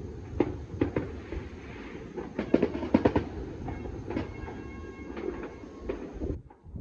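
Distant New Year's fireworks and firecrackers going off across a city: a continuous rumble of scattered bangs and pops, with a thick cluster of cracks about three seconds in. The sound drops away sharply near the end.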